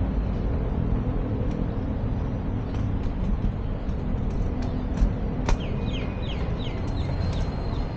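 Steady low rumble of distant city traffic, with scattered faint chirps and, about halfway in, a bird calling in a quick run of short repeated notes.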